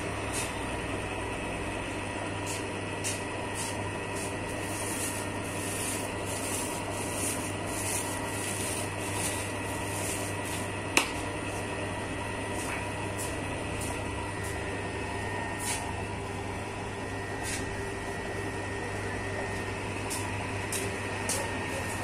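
Commercial dough mixer running steadily, its motor humming as the mixing arm churns flour and water in a steel bowl. Scattered light clicks, with one sharper knock about eleven seconds in.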